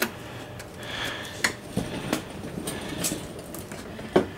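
A few separate light metallic clinks and knocks, with the loudest one near the end, over a quiet garage background.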